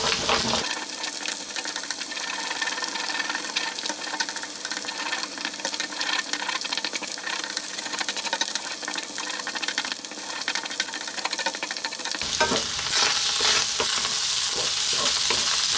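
Beaten egg sizzling in hot oil in a pan, scrambled with a spatula that scrapes and taps the pan, with the fried rice being stirred into it near the end.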